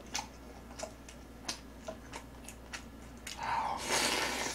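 Mouth sounds of eating: scattered wet chewing clicks and smacks, then about three seconds in a loud noisy slurp lasting over a second as a new mouthful goes in.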